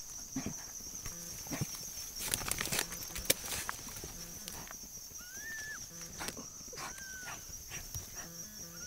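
Fell terriers snuffling and scrabbling at a den hole in a rotten stump, with scattered scratching clicks and two brief high whines, as the dogs work at a hidden animal they cannot reach.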